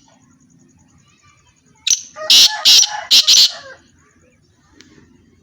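Partridge (teetar) calling: a loud burst of about four harsh, shrill notes starting about two seconds in and lasting under two seconds.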